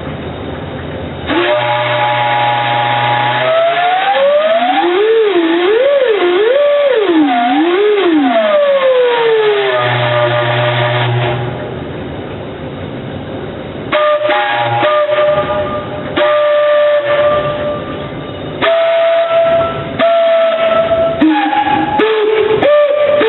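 Homemade steam whistle with a sliding piston, blowing a long blast whose pitch slides up and down several times as the piston is moved. After a quieter stretch of hiss comes a run of shorter blasts at different steady pitches, the last few gliding.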